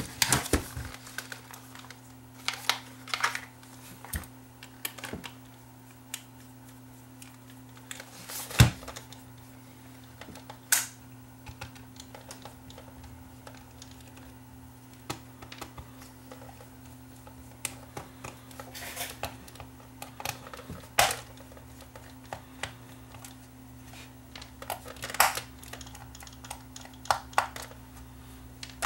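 Scattered clicks and knocks of hands and a small screwdriver working on the plastic body of a Sony CCD-TR71 8mm camcorder as its case screws are taken out, the sharpest knock about eight and a half seconds in. A steady low hum runs underneath.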